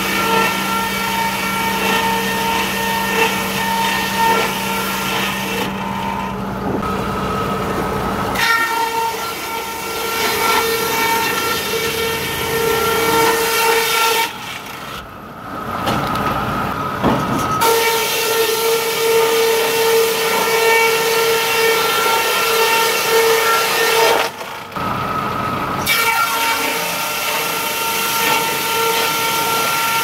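Sawmill edger running with a steady machine whine as old two-inch boards are fed through its saws. A low hum stops about a quarter of the way in, and the sound thins out briefly three times: early, midway and near the end.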